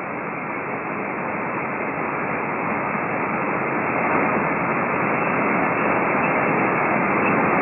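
Hiss of band noise from a Hermes Lite software-defined radio receiving in upper sideband on the 20-metre amateur band while it is tuned between stations. The hiss is steady and slowly grows a little louder.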